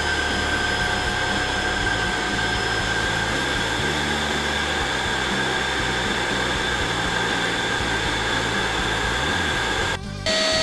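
NEQUARE A17 cyclone stick vacuum cleaner running steadily, a motor whine over the rush of air. About ten seconds in it breaks off for a moment and then runs on with its whine at a lower pitch.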